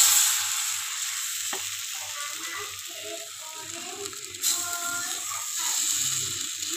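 Rice-flour batter sizzling on a hot griddle pan as it is poured on and patted out by hand. The sizzle is loudest as the batter first hits the pan and swells again about four and a half seconds in.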